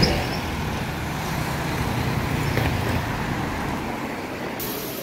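Street traffic noise: a steady rumble of passing cars. About four and a half seconds in it cuts off abruptly to a quieter hiss.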